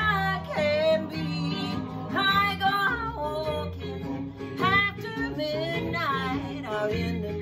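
A woman singing a slow song over a guitar accompaniment, with sung phrases that slide up and down in pitch.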